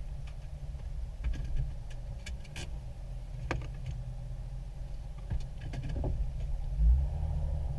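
Off-road 4x4 creeping along a grass trail, heard from inside the cab: a low, steady engine and drivetrain rumble with scattered clicks and knocks. There is a heavier low thump near the end.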